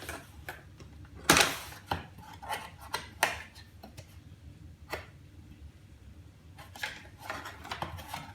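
Irregular clicks, knocks and clatter of metal and plastic typewriter parts being handled and pried during disassembly. The loudest is a short scraping clatter about a second and a half in.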